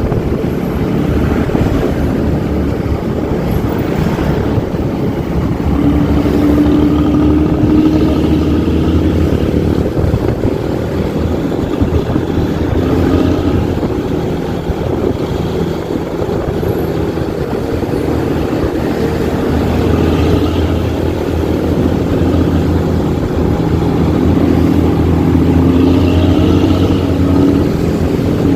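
Intercity bus's diesel engine running hard through a loud aftermarket racing exhaust with a growling 'ngorok' note, its pitch climbing twice as it accelerates.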